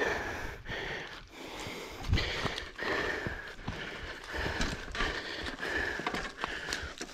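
Mountain bike moving over a dry, leaf-covered trail: leaves crunching and rustling under the tyres, with irregular knocks and rattles from the bike.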